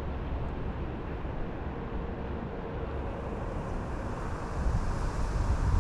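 Wind buffeting the microphone: a low, rushing rumble that gets gustier near the end.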